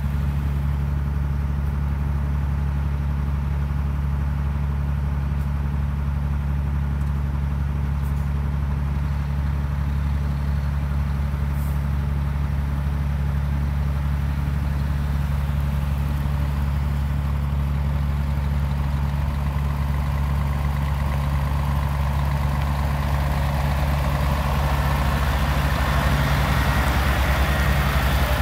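Scania G 480 truck's six-cylinder diesel engine running at low, steady revs as the truck manoeuvres slowly. The engine grows louder and brighter in the last few seconds as the microphone comes up close to the truck.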